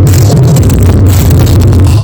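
Music played at very high volume through a large sound system, with heavy, booming bass.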